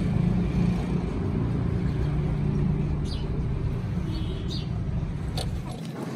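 An engine running steadily with a low hum that cuts off near the end, with a few light clicks over it.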